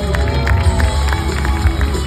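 Loud stage-show music with a heavy, pulsing bass beat.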